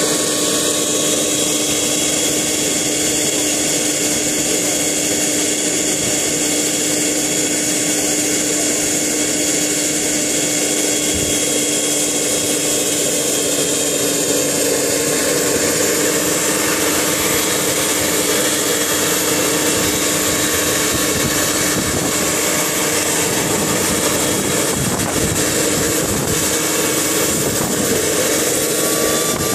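Turbine-powered radio-controlled scale model of a CH-53 helicopter running steadily with its rotors turning: a high turbine whine holds steady over the rotor noise.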